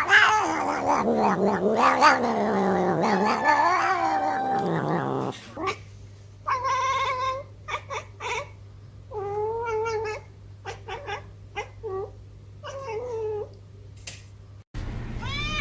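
Domestic cats yowling in long, wavering calls for about five seconds. After that comes a run of separate, shorter meows.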